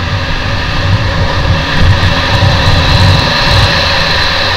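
Trail motorcycle under way at speed, its engine running steadily under load, with wind rumble on the microphone that swells in the middle.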